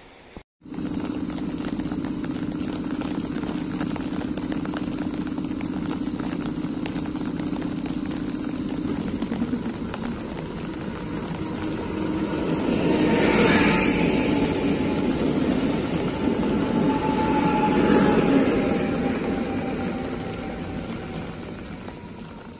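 An EN76 electric multiple unit passing along the platform on wet rails. A steady hum gives way to a rising rumble of wheels and motors that peaks twice, with a motor whine that slowly falls in pitch, then fades away.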